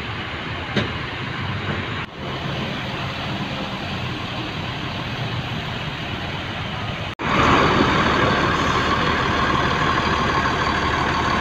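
Steady engine and road noise of a moving bus, heard from inside. After an abrupt cut about seven seconds in, it becomes louder and brighter.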